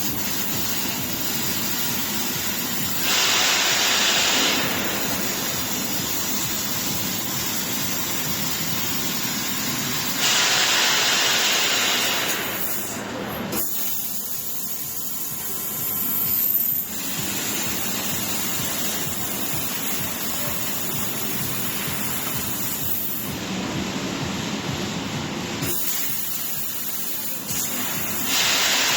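Laser cutting machine running: a steady rushing hiss, typical of assist gas blowing through the cutting head. It swells louder for a second or two about three seconds in, again about ten seconds in, and near the end, and eases off for a few seconds in the middle.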